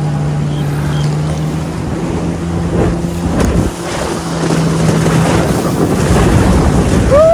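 Inflatable towable tube being pulled across the water: the towing watercraft's engine drones steadily under rushing water and wind buffeting the microphone, the engine tone fading out about five seconds in. A rising shout begins right at the end.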